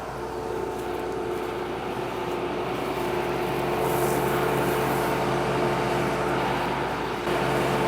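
Combine harvester running: a steady machine hum with several held tones that grows louder over the first four seconds, dips briefly and steps back up near the end.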